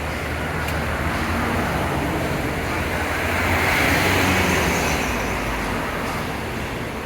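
Street traffic with a low engine rumble. A vehicle passes close, its tyre and engine noise swelling about four seconds in and then fading.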